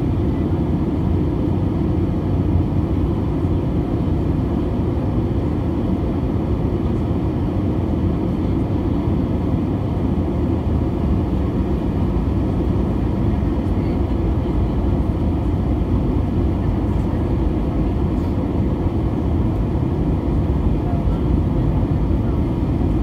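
Airbus A320 cabin noise from a seat over the wing during the approach: the engines and rushing airflow make a steady, even low rumble that does not change.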